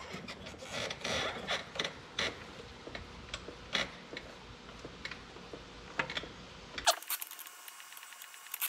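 Wrenches working a nut off a through bolt on a tractor's steel bracket: scattered metallic clicks and clinks of the tools on the nut and bracket.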